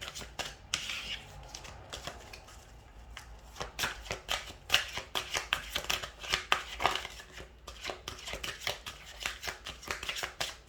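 A deck of reading cards being shuffled by hand: a long run of quick, irregular card snaps and taps, sparse at first and coming thick from a few seconds in.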